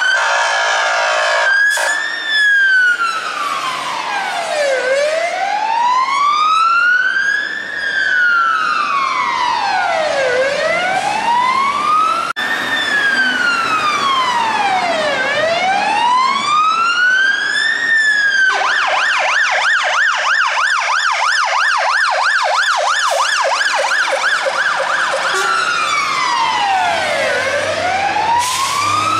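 Scania fire engine's two-mode siren: a slow wail rising and falling about every five and a half seconds, switching about 18 seconds in to a fast yelp for several seconds, then back to the wail. A brief steady horn-like tone sounds in the first second or two.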